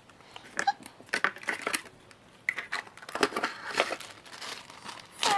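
Sticky homemade slime being pulled and handled, giving irregular sticky clicks and small crackling pops.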